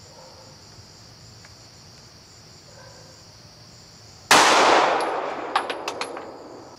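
A single 9mm shot from a Glock 19 pistol firing a 147-grain Remington Golden Saber round, about four seconds in, its report fading over about two seconds, with a few light metallic clinks after it. Crickets chirr steadily throughout.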